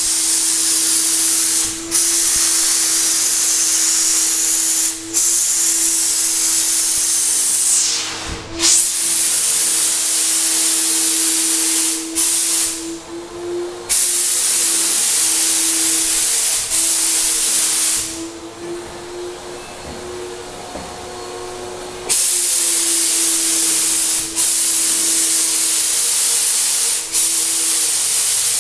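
Graco 9.5 HVLP sprayer in use. The turbine runs with a steady hum, and the spray gun hisses loudly while the trigger is held. The hiss cuts out briefly a few times early on, and for longer a little before halfway and again about two-thirds through, leaving only the turbine.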